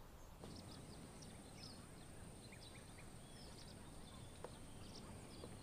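Near silence: faint outdoor ambience with scattered small bird chirps and a steady high hiss that comes in about half a second in.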